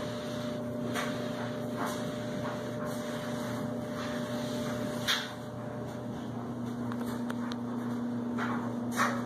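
A steady hum with a faint hiss, with a few brief scuffs of a cloth towel being wiped over ceramic floor tile.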